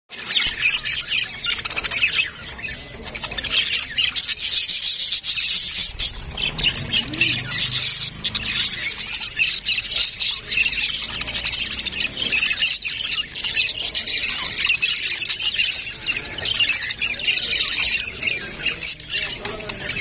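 A flock of budgerigars chattering and warbling without a break: many fast, high chirps running over one another.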